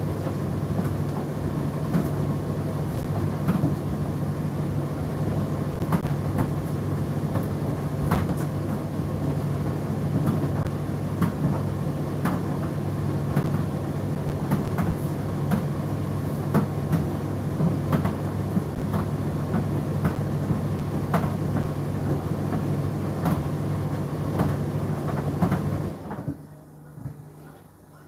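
Indesit IDC8T3 condenser tumble dryer running: a steady low motor hum with irregular light clicks and knocks from the tumbling drum. About two seconds before the end, the motor and drum stop and the sound drops away.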